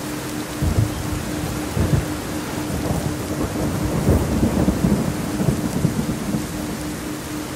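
Steady rain falling, with rolls of thunder rumbling through it, the strongest about four to five and a half seconds in. A faint steady low tone runs underneath.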